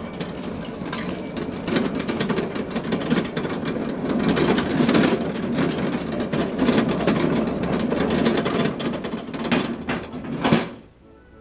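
Homemade electric lawn tractor being driven across a bumpy yard: a steady, busy rattling and clattering of the machine as it rolls. It stops abruptly near the end.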